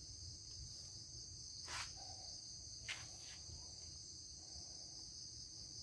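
Faint, steady, high-pitched chirring of insects, with two soft clicks about two and three seconds in.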